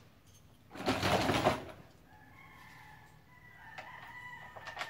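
A rooster crowing once, loudly, about a second in. Fainter drawn-out calls and a few light knocks follow.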